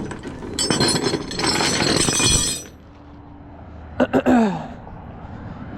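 Metallic clinking and rattling for about two and a half seconds, then a lull, then a few sharp clicks about four seconds in.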